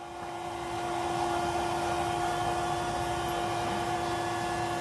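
A small electric air pump running at a steady pitch: a motor whine over a rush of air, growing louder over the first second.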